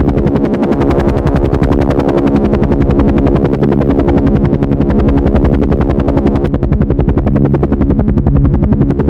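Helicopter running steadily at close range: rapid, even rotor-blade beats over a steady whine and hum from the engine and transmission.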